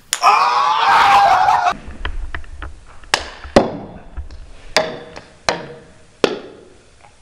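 A person's drawn-out, wavering vocal cry for the first second and a half, then five sharp, separate clicks of a ping-pong ball striking hard surfaces, each with a brief ring, irregularly spaced about a second apart.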